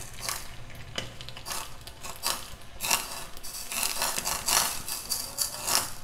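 Crackling and sizzling from something burning in a metal ladle held over a gas flame. The crackles are irregular and come in denser patches, over a low steady hum.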